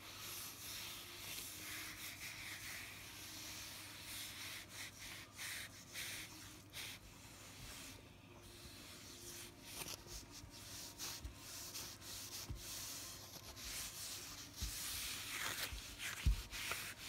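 Cloth rag wiping back and forth over a cherry and maple wooden cutting board, rubbing butcher block oil into the surface: faint, irregular rubbing strokes.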